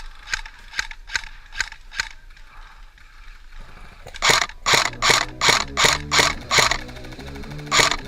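Instrumental hip-hop beat with no vocals: a ticking, clicking percussion pattern, then from about four seconds in heavy, evenly paced drum hits over a stepping bass line.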